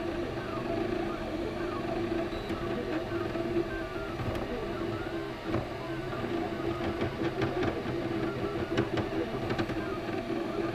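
MakerBot Replicator 3D printer at work: its stepper motors whir in short stepped tones that keep changing pitch as the print head moves, over a steady hum.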